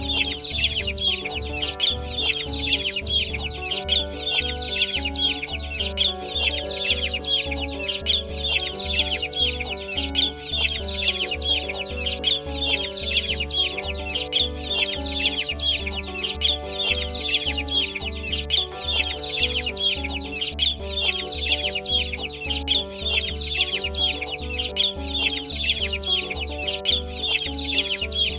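Chickens clucking and peeping continuously, over background music with a steady bass beat.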